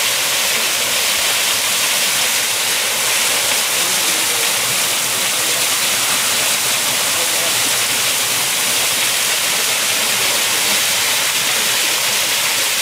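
Small stepped waterfall, water pouring over several rock ledges in a steady, unbroken rush, strongest in the high range.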